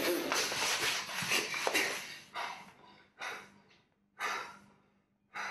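A person breathing hard in loud gasps: a thick stretch of heavy breathing, then four separate breaths about a second apart.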